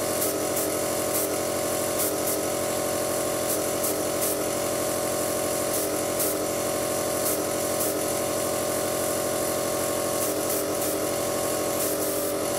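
Small airbrush compressor running with a steady hum, while a Badger 200 bottom-feed airbrush sprays paint in short hissing bursts.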